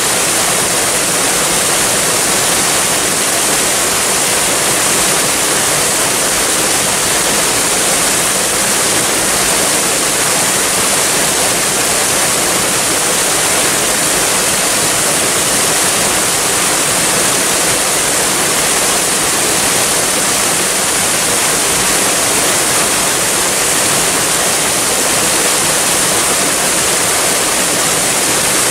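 Waterfall: falling water making a steady, unbroken hiss, strongest in the high range.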